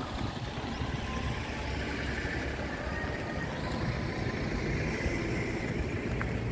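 A convoy of SUVs and cars driving past one after another on a narrow country road: a steady rumble of engines and tyres.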